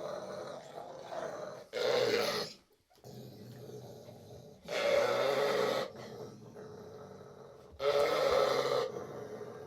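Springer spaniel giving three gruff, drawn-out vocalizations, each about a second long and roughly three seconds apart, with quieter low sounds between them.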